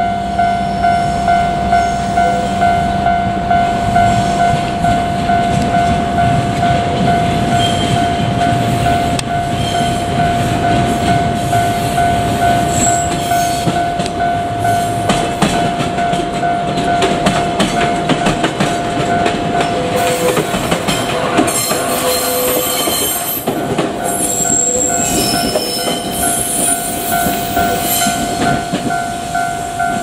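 Railway level-crossing warning bell ringing in a steady repeating clang, about two strokes a second, while a JR Kyushu 817 series electric train runs past on the tracks with wheel clatter. High wheel squeal joins in for several seconds in the second half.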